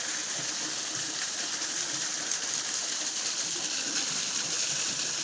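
Mountain spring water running steadily, a constant even rush of flowing water.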